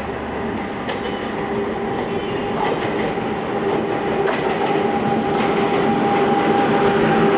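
A WCAM-3 dual-current electric locomotive hauling an express train approaches and runs past at speed, growing steadily louder. A steady hum runs under it, with occasional clicks of the wheels over rail joints.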